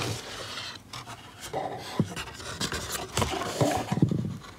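A cardboard box lid is opened by hand, with cardboard rubbing and scraping and a few knocks, the loudest near the end.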